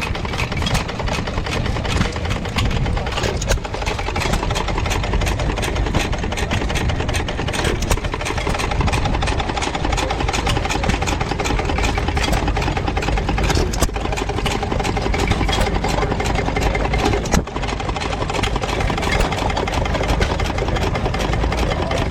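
Antique hit-and-miss gas engines running at low idle, a steady mechanical running sound with a few sharp clicks, the loudest about three-quarters of the way through.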